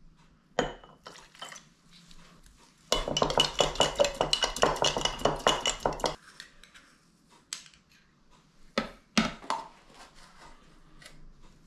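Metal utensil clattering rapidly against a bowl for about three seconds, as in quick stirring or mixing, with scattered single clinks of spoons and dishes before and after.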